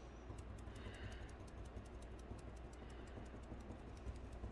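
A paint-loaded sponge dabbed over and over on a vinyl stencil on a ceramic bisque plate: faint, quick taps, several a second.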